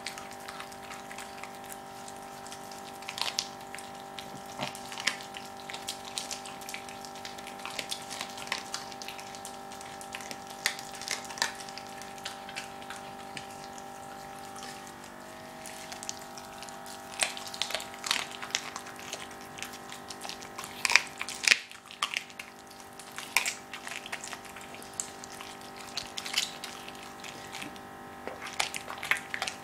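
Jack Russell terrier chewing a raw squirrel carcass: irregular wet crunches and clicks of teeth through flesh and bone, coming thicker in the second half, over a steady hum.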